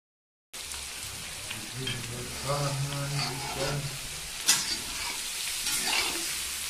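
Sliced onions and potatoes sizzling in oil in a metal kadai, starting about half a second in, while a metal spatula stirs and scrapes them. A sharp clack of the spatula against the pan about four and a half seconds in is the loudest moment, with a few lighter scrapes later.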